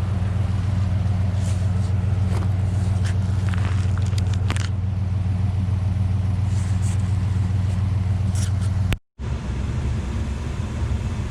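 Truck engine idling with a steady low hum, with a few light scrapes over it. About nine seconds in the sound drops out for a moment, then comes back as a rougher, more uneven low rumble.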